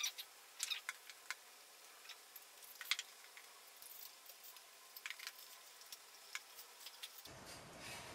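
Scattered light clicks and taps of small wooden squares and a wooden dowel knocking together as they are handled and slid onto the dowel. The loudest click comes right at the start.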